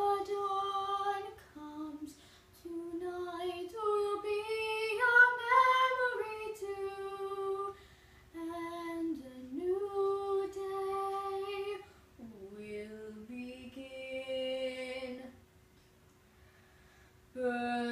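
A woman singing alone without accompaniment, in phrases of long held notes separated by short breaths, with a longer pause near the end.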